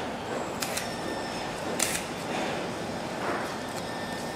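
Steady background noise of an electronics assembly floor, with about three short rustles and clicks as a small lithium-polymer battery's leads are handled and plugged into a camera circuit board.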